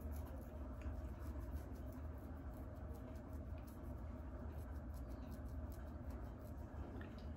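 Fingernails scratching and picking at the scalp through the hair: many faint, quick scratchy rasps over a low steady hum.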